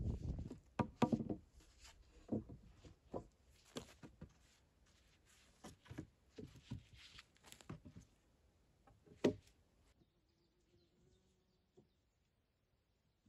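Dead pine poles knocking and clattering against each other and against the stakes as they are laid into a log wall. The knocks come irregularly, with a sharp one about nine seconds in, and then stop.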